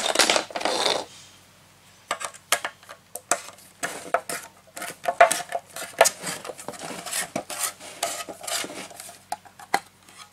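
Metal opener prying around the rim of a gallon paint can: a long irregular run of sharp metallic clicks, taps and scrapes as the lid is worked loose and lifted off. It starts with about a second of crackling.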